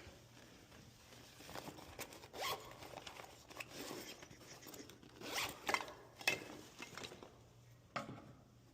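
A run of short, zipper-like rasping strokes and sharp clicks at irregular spacing, from a locksmith's tools and gear being handled at a locked apartment door.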